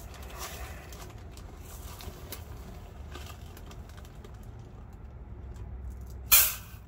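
Dry rice being scooped out of a plastic zip-lock bag with a measuring cup, with soft rustling, then a cupful of rice tipped into the rice cooker's empty inner pot with a short, loud rattle about six seconds in.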